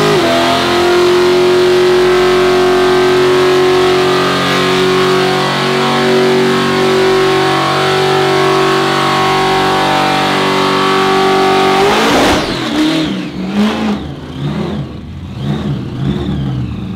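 Supercharged Holden HJ ute's engine held at steady high revs through its newly fitted full exhaust during a tyre-smoking burnout. About twelve seconds in it drops off and turns into a run of short revs, each rising and falling.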